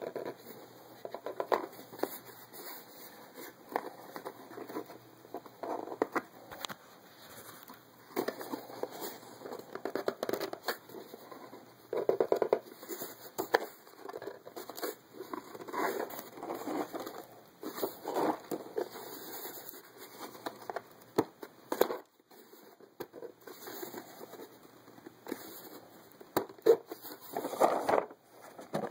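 Cardboard box and packaging being handled and worked open: irregular rustling, scraping and crackling, with scattered clicks and knocks. The box is hard to get open.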